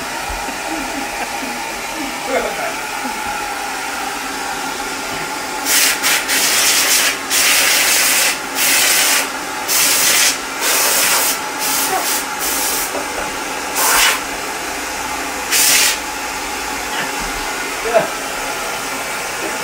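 Canister vacuum cleaner running steadily as its nozzle works over a heat pump's indoor unit. In the middle stretch a loud hiss comes and goes in about ten bursts of half a second to a second each.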